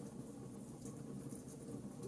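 Fireplace fire crackling: a steady low rush of burning with small, irregular pops and ticks scattered through it, a few each second.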